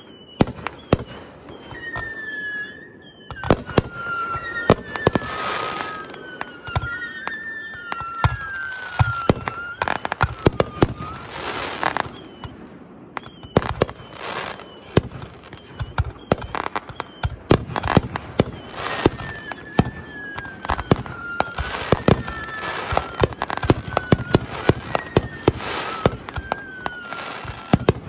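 Aerial firework shells launching and bursting in a rapid, irregular run of sharp bangs, with hissing swells of crackle. A high whistling tone glides up and down through much of it.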